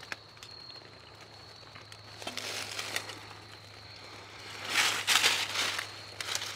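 Dry fallen leaves and brush crunching and rustling as someone moves through them, in two bouts, the louder one about five seconds in.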